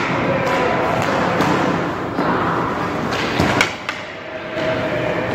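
Ice hockey skate blades scraping and carving on rink ice, with a few sharp clacks of sticks and pucks.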